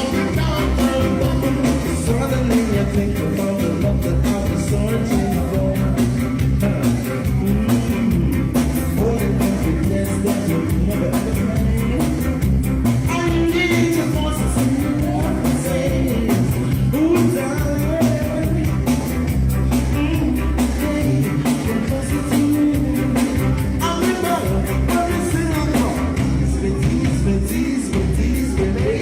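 Reggae band playing live, with a lead vocal singing over bass, drums and guitar.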